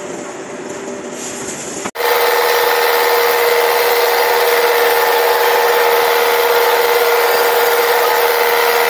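Shoe-sole edge trimming machine's spinning wheel grinding the rubber sole edge of a leather boot: a loud, steady whine with rasping that starts abruptly about two seconds in. A quieter steady workshop machine noise comes before it.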